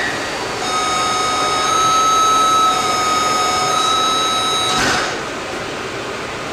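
Taipei Metro train's door-closing warning buzzer: one steady electronic tone held for about four seconds, then a thud as the passenger doors slide shut about five seconds in.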